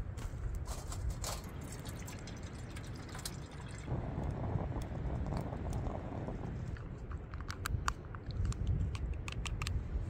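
Coffee being poured into a cup for about two and a half seconds, in the middle of the stretch. Before and after it come light clicks and taps of cup and gear being handled. A low wind rumble runs underneath.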